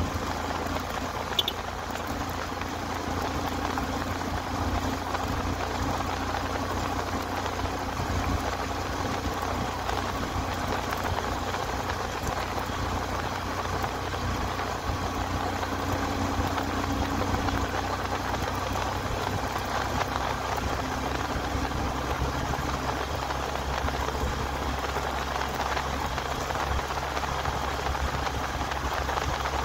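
Motorcycle engine running steadily at cruising speed, mixed with wind and road noise from riding. There is a single brief click about a second and a half in.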